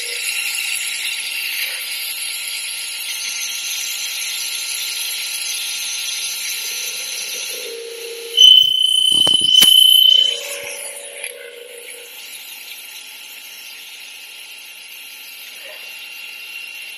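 CNC drilling machine drilling a metal tube profile under coolant spray: a steady high whine over a hiss. About eight and a half seconds in, a loud high squeal with a few sharp clicks lasts under two seconds, and the sound is quieter over the last few seconds.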